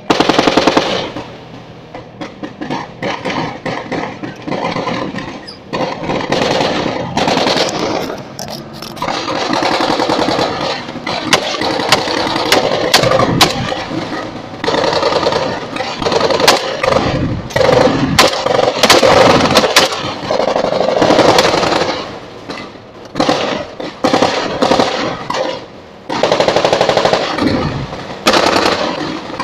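Automatic gunfire: long strings of rapid machine-gun shots, loud and near, easing briefly a couple of times before picking up again.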